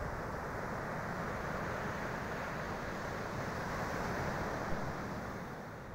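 Ocean surf washing onto a sandy beach, a steady rush of breaking waves, with wind rumbling on the microphone.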